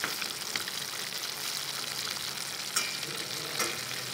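Pork liver and sliced onion sizzling in lard in a stainless steel pot as they are stir-fried with wooden chopsticks, with a few light clicks of the chopsticks against the pot.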